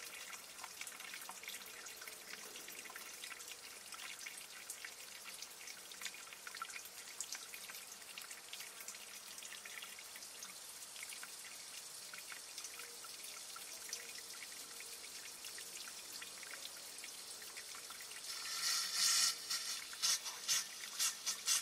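Liquid propane trickling and dripping faintly from an inverted camping gas cylinder into a glass jar, with small ticks. Near the end come louder hissing spurts as the cylinder runs empty.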